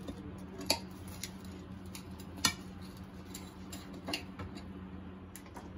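Kitchen knife cutting a crisp stuffed paratha on a plate: scraping, with the blade knocking against the plate in sharp clicks, the loudest twice, about a second and two and a half seconds in. A steady low hum runs underneath.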